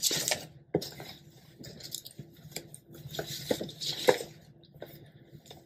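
Handling noise from a fabric blouse being picked up and unfolded: soft rustling with scattered small clicks.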